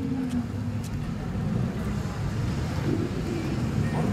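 Car engines and exhausts running as cars drive slowly past at low speed, a steady low-pitched sound.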